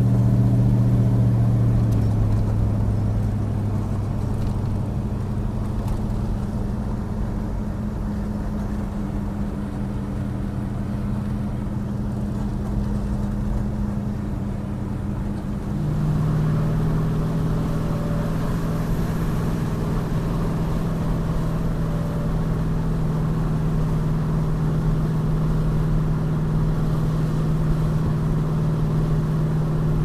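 1969 Dodge Super Bee's V8 engine running while driving, heard from inside the cabin along with road noise. The engine note drops just at the start, then the sound jumps abruptly louder about 16 seconds in and holds a steady drone at cruising speed.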